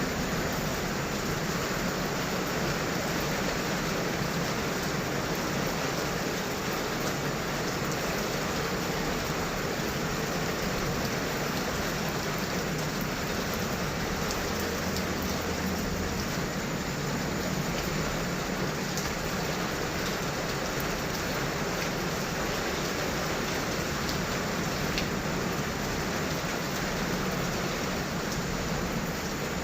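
Heavy rain falling steadily, an even wash of rain noise with no distinct thunderclaps.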